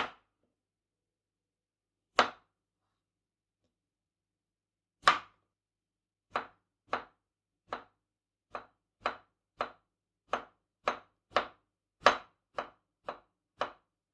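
Knife slicing zucchini on a bamboo cutting board. Each stroke is a sharp tap of the blade on the board: a few spaced cuts at first, then steady slicing at about two strokes a second.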